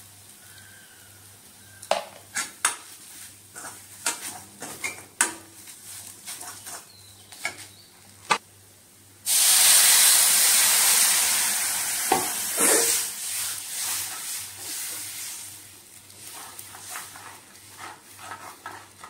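Steel ladle scraping and clacking against a kadai as spices are stirred into a frying masala. About nine seconds in, water poured into the hot pan sets off a sudden loud sizzle that dies down over several seconds while the stirring goes on.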